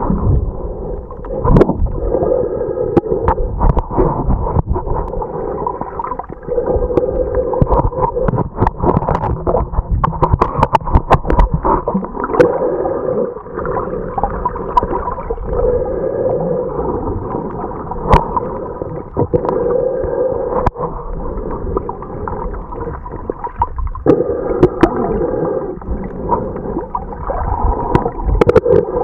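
Muffled underwater sound picked up by a camera held below the surface: gurgling water that swells every few seconds, with scattered sharp clicks and knocks.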